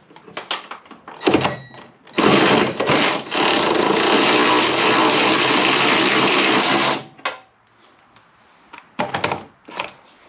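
Cordless drill running steadily for about five seconds, boring down through a bonnet-strut bracket hole to start the hole for a rivnut in the car body, then stopping abruptly. A few sharp clicks of tool handling come before and after.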